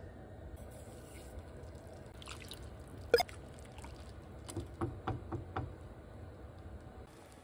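Wooden spoon stirring water with meat and whole spices in a steel stock pot: liquid sloshing and dripping, with one sharp knock about three seconds in and a few lighter taps a little later.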